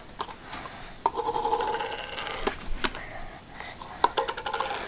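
Small lidded plastic condiment cups being picked up, turned over and set down on a table, making a scatter of light clicks and knocks.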